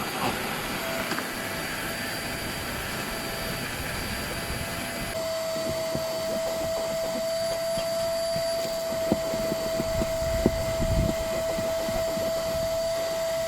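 Vacuum cleaner running steadily with a high whine while hoovering a car interior, the nozzle knocking against surfaces now and then. About five seconds in the hiss of the airflow drops and the whine grows steadier.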